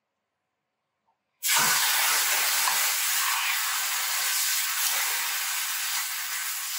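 A birria-dipped tortilla sizzling in a hot frying pan. The steady, loud frying hiss cuts in suddenly about a second and a half in.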